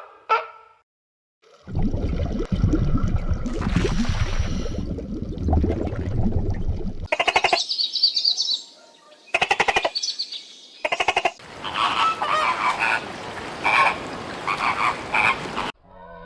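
Frogs croaking: several separate clips of calling, some dense and low, some in rapid pulsed trills, each starting and stopping abruptly.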